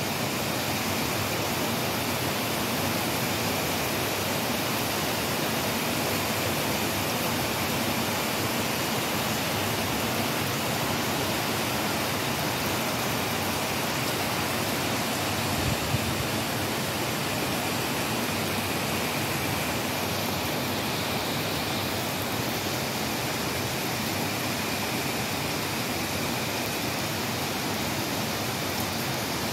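Heavy rain falling, a steady, even hiss of downpour. About sixteen seconds in there is one brief low thump.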